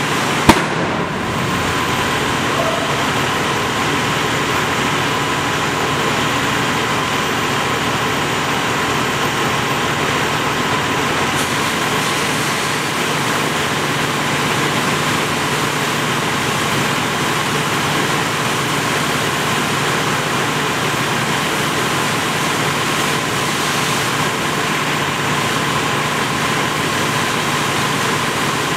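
Fire hose spraying water onto a burning car: a steady hiss of spray with a steady hum underneath. One sharp pop about half a second in is the loudest sound.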